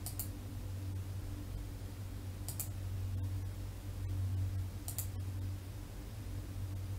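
Computer mouse clicks, three times about two and a half seconds apart, the later two each a quick double press-and-release, over a steady low hum.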